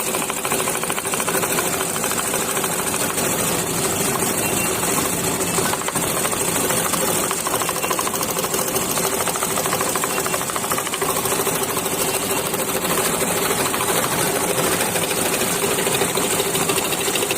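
Electric scroll saw running steadily, its blade stroking rapidly up and down as it cuts fretwork in a wooden jali panel.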